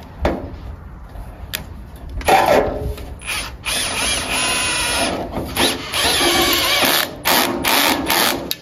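Cordless drill-driver running in several trigger pulls, four runs over the last six seconds, each about a second long.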